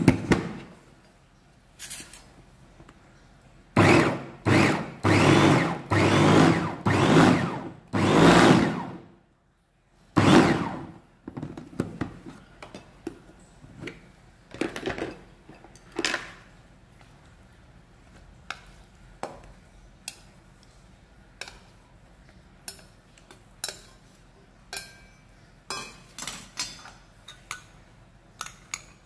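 Small electric mini chopper blending boiled red chillies, run in about six short pulses of a second or less, then once more about ten seconds in. After that come light clicks and knocks of the plastic bowl, lid and spoon being handled.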